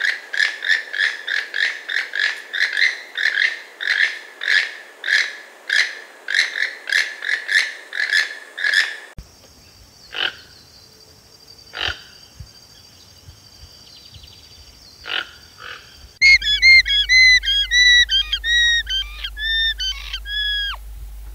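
A toucan calling: a frog-like croak repeated about two and a half times a second for some nine seconds. A few sharp clicks follow over a faint steady high tone. From about 16 seconds in, a vicuña gives high, quavering whistling calls.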